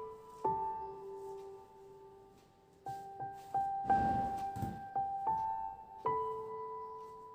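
Slow, gentle solo piano music, single notes and chords left to ring. A brief noise, like something being handled, sounds under it about four seconds in.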